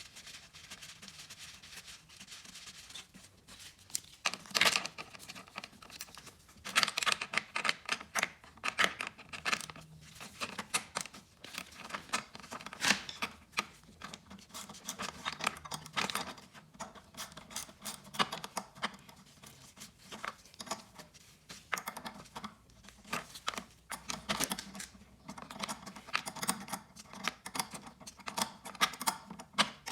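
A hand wrench loosening the nuts that hold a lawn mower's carburetor: runs of rapid small metal clicks and scraping, fainter for the first few seconds, then in repeated bursts.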